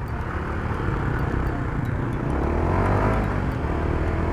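Honda Supra GTR150's single-cylinder engine running through an MVR1 power pipe exhaust while the motorcycle is ridden, with a steady low drone and the engine note climbing in pitch in the second half.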